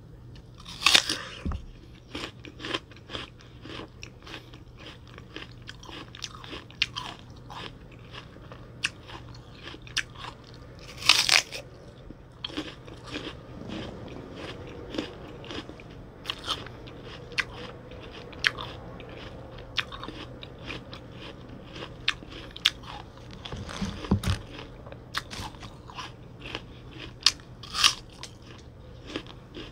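Close-miked biting and chewing of a crisp red apple: loud crunching bites about a second in and again around eleven seconds, with wet crisp crunching and chewing between them.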